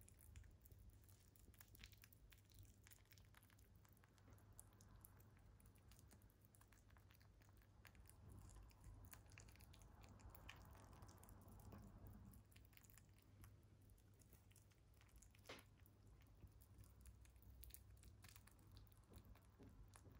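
A mini lop rabbit chewing and licking soft peeled banana: faint, quick, moist clicks from its teeth and mouth, with one sharper click about fifteen seconds in.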